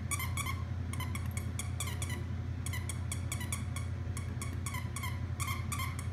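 Squeaker in a plush hedgehog dog toy being squeezed rapidly by a dog's chewing: quick high squeaks, about five a second, in runs with short pauses, over a steady low hum.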